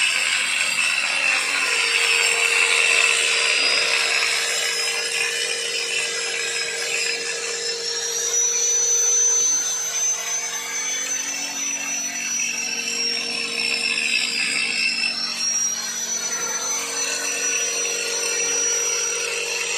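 A motor-driven machine running steadily: a constant hum under a high whine that drifts slowly up and down in pitch.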